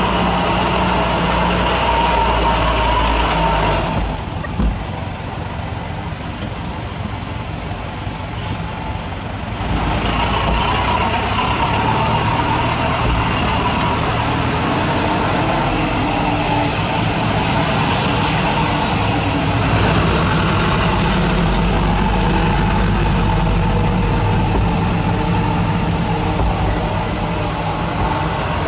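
A truck's diesel engine running steadily as it drives slowly over a rough dirt road, heard from inside the cab. For a few seconds, about four seconds in, it turns quieter before it comes back up to its earlier level.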